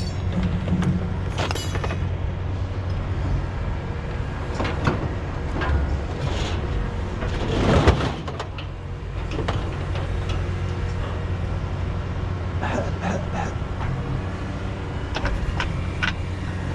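A vehicle engine runs steadily underneath scattered knocks and clatter, with the loudest a brief rushing thump about eight seconds in.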